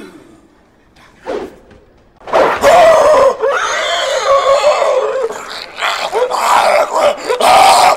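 Loud screaming and roaring starts about two seconds in and keeps on, several cries overlapping. Before that it is mostly quiet apart from one short cry.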